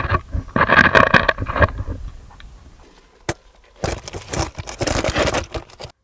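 Scraping and rustling of a camera being handled and pushed into a rock grotto, in two spells with a single sharp click between them.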